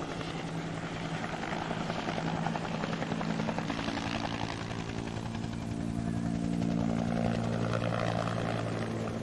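Steady engine drone with a fast pulsing beat and a low hum that grows louder from about three seconds in, then cuts off suddenly at the end.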